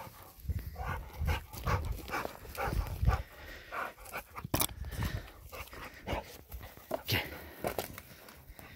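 A dog panting and huffing close to the microphone during play, in short irregular breaths, with several low thuds in the first few seconds.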